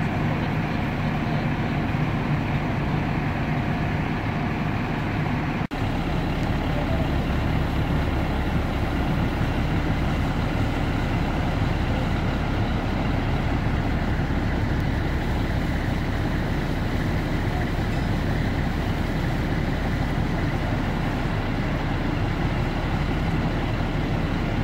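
Diesel engines of parked fire trucks idling, a steady low rumble, with a brief dropout about six seconds in.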